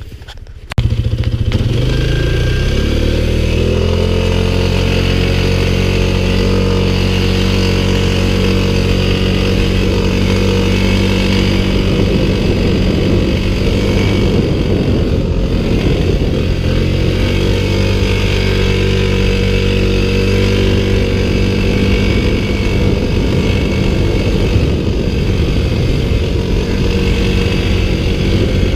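A vehicle engine driving under load. It cuts in suddenly about a second in, rises in pitch over the next few seconds, then runs steadily.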